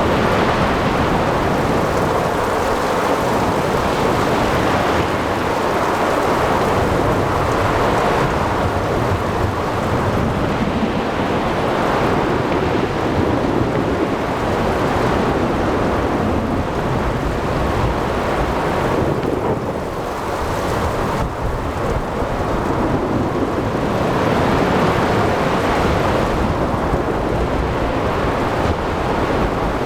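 Thunderstorm at sea: continuous rumbling thunder over steady rain, easing briefly about twenty seconds in.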